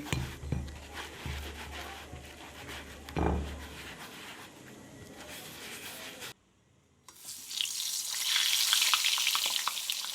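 Brinjal slices frying in hot oil in a pan: a crackling sizzle that comes in strongly for the last few seconds. Before it come a few dull knocks and handling sounds, then a short break.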